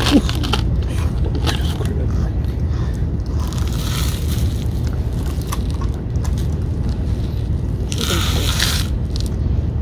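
Two cats eating wet food, small wet chewing and licking clicks, over a steady low rumble. Twice, about four and eight seconds in, a cat brush swishes briefly through the tabby's fur.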